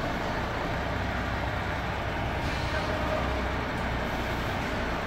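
Diesel engine of a MAN truck carrying an aerial work platform, running steadily at low speed as the truck is manoeuvred slowly.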